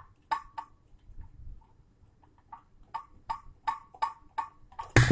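Sharp metallic clicks as the heating element's fastening on an Ariston water heater is worked loose: two clicks, a pause, then a quickening run of about four or five a second, ending in a louder click.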